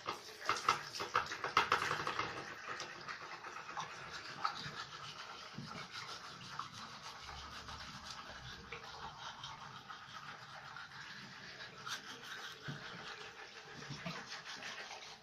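Manual toothbrushes scrubbing teeth, a rapid scratchy brushing that is loudest in the first two seconds or so and then goes on more softly.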